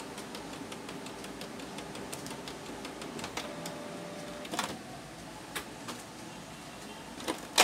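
Canon PIXMA MP287 inkjet printer's mechanism running: a steady whir with scattered ticks, a short steady tone about halfway through, and two sharp clacks near the end, the second the loudest.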